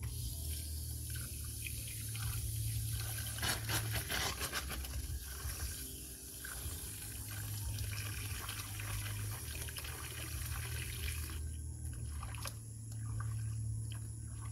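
Water running from a garden hose into a small metal cooking pot, filling it with a steady splashing trickle that stops near the end.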